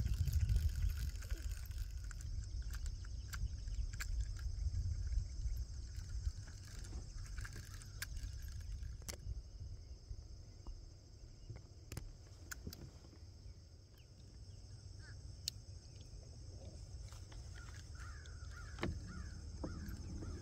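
Crows cawing, most clearly near the end, over a low rumble that fades after the first few seconds, with scattered light clicks.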